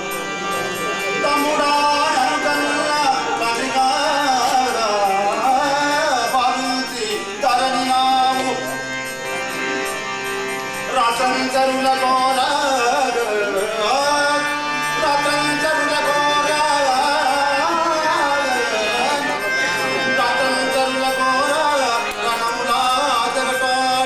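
Devotional bhajan: a man sings over a harmonium, with tabla keeping the rhythm.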